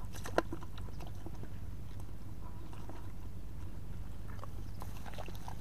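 Scattered small wet clicks and splashes from hands and caught fish moving in a plastic bucket of muddy water, with one sharp knock about half a second in, over a steady low wind rumble on the microphone.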